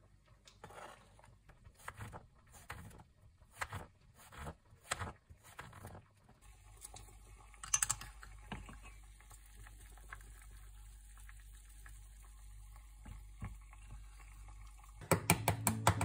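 Kitchen knife cutting cherry tomatoes on a plastic cutting board: a string of irregular chops and taps for about the first six seconds. After that a steady low hum with a few faint knocks, and plucked guitar music comes in near the end.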